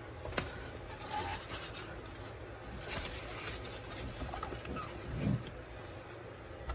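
Faint rustling and scraping as artificial vine leaves and a plastic enclosure tub are handled, with a sharp click about half a second in and a soft knock a little after five seconds.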